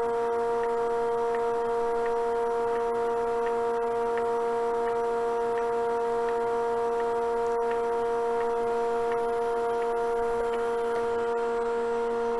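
Woodturning lathe's motor running steadily at very low speed, giving a constant pitched electric hum with no change in speed.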